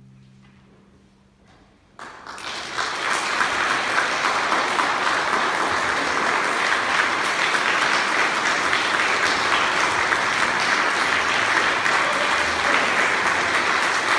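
A string orchestra's last chord fades away. About two seconds in, the audience breaks into applause, which builds for a moment and then holds steady.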